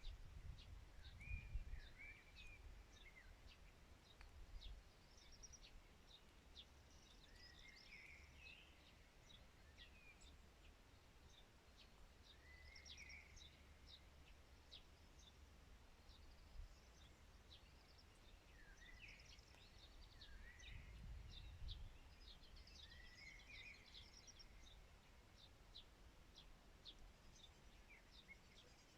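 Songbirds singing faintly: short warbling phrases repeated every few seconds among many quick high chirps. A low rumble comes near the start and again about two-thirds of the way through.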